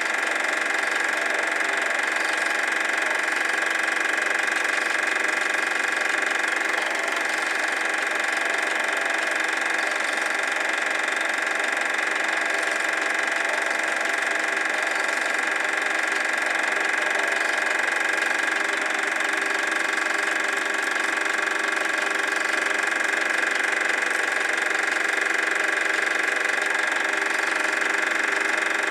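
Super 8 film projector running steadily: an even mechanical whir from its motor and film transport, strongest in the upper middle with no bass.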